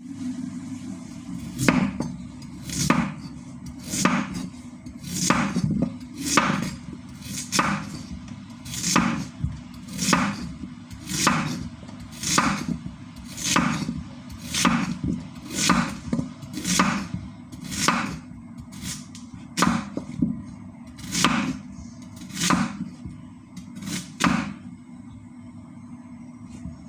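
Knife chopping a radish, one sharp chop about every second, about twenty in all, stopping a couple of seconds before the end. A steady low hum runs underneath.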